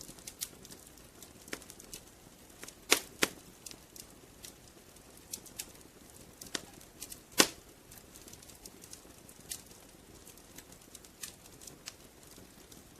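Wood fire crackling in a fireplace: irregular snaps and pops over a soft hiss, with a pair of louder pops about three seconds in and another sharp pop a little past halfway.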